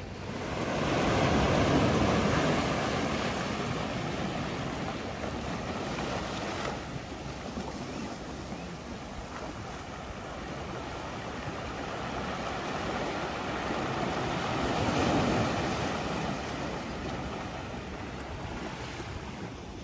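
Waves washing onto a sandy beach, swelling loudest about two seconds in and again around fifteen seconds in.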